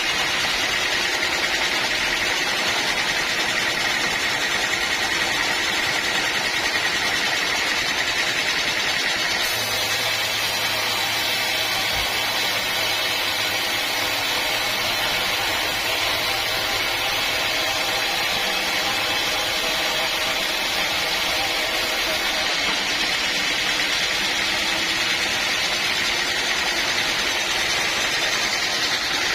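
A sawmill's engine running steadily, an even mechanical noise that doesn't let up.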